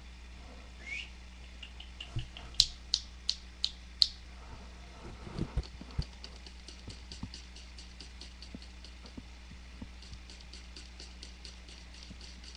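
Cat close to the microphone with a short rising chirp, then a run of sharp clicks getting louder and a few dull thumps. After that, a faint fast ticking of about five a second.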